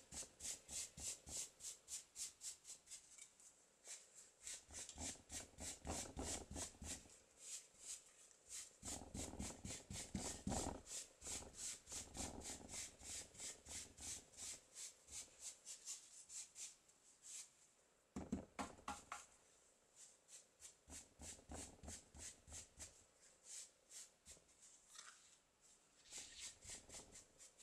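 Sponge dabbing paint onto canvas drop cloth, a soft pat about three times a second with a few short pauses, building up the colour in layers.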